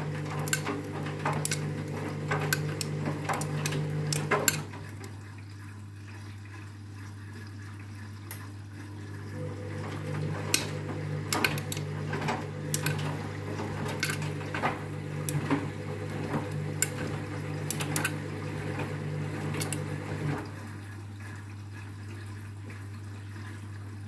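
Front-loading washing machine drum turning a load of backpacks in the main wash: motor hum, water sloshing, and sharp clicks and knocks as the backpacks tumble. It pauses about four seconds in, turns again from about nine seconds, and pauses again near the end.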